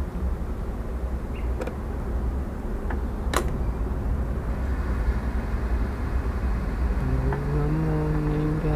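Steady low rumble of background machinery or traffic, with a couple of sharp clicks, then a man humming a few steady notes near the end.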